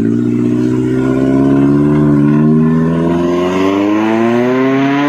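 Off-road 4x4's engine pulling under load, its revs climbing slowly and steadily.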